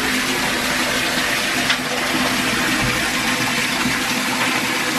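Bathtub faucet running, water pouring steadily into a filling tub.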